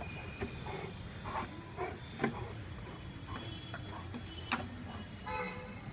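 A plastic drink bottle crackling and knocking as two dogs chew and paw at it: a string of sharp clicks and knocks, the loudest about two seconds in and another a couple of seconds later.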